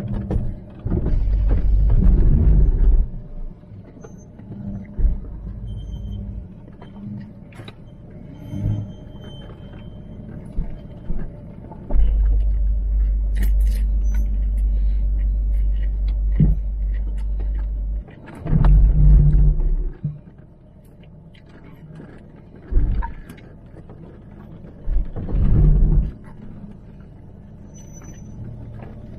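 Range Rover L322 driving slowly over a rough, rocky track, heard from inside the cabin: a low rumble with several heavy thumps and knocks, the loudest about two seconds in and again near twenty seconds, and a steady low drone through the middle.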